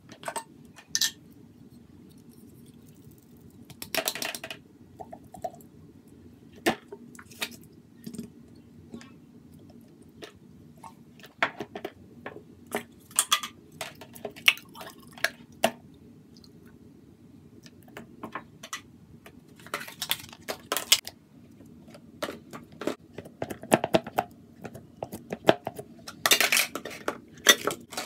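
Slime being squeezed and scraped by hand out of a glass bowl and plastic tubs into a large plastic bowl: irregular sticky squelches and clicks, with knocks of the containers, coming in clusters.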